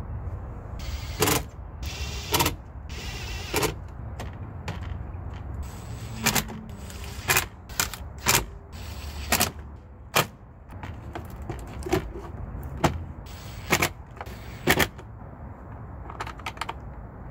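Sharp plastic clicks and snaps, about a dozen spread unevenly, as minivan dashboard trim around the instrument cluster is handled and pressed into place, over a steady low hum.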